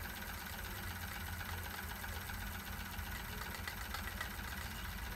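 Wilesco D305 model steam engine running slowly and steadily, nearly out of steam and winding down toward a stop.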